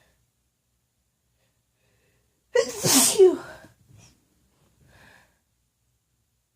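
A woman's single loud, unmuffled sneeze about two and a half seconds in, brought on by tickling her nose with a feather, followed by two much fainter short sounds.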